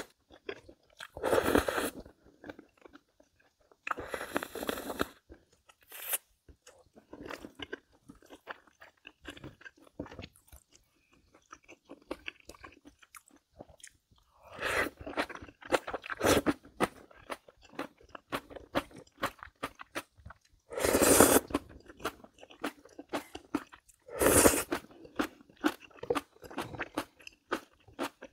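Close-up mukbang eating sounds: a person chewing crunchy food, with a steady run of small crunches and clicks. Several louder noisy bursts of about a second each come at intervals.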